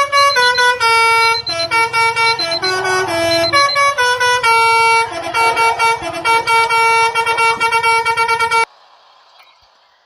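Telolet basuri truck horn playing a quick melody of stepped, ringing notes, one after another, then cutting off abruptly near the end.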